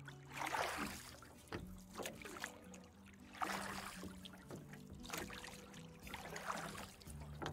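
Kayak paddles swishing and splashing through water about four times, a stroke every second or two, over soft background music.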